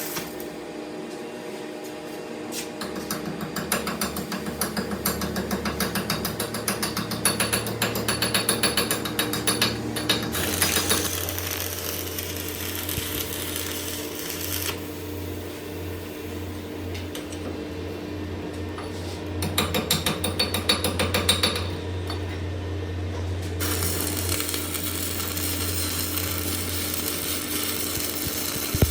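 Workshop machinery running with a steady hum. Rapid mechanical clicking fills the first third and comes back briefly about two-thirds of the way through.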